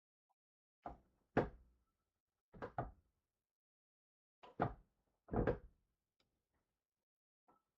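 Hard knocks and clacks from toys and their container being handled, in about four quick pairs with pauses between.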